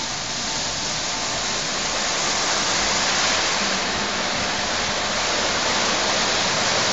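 Christ automatic car wash spraying water over a car: a steady, even rushing hiss like heavy rain.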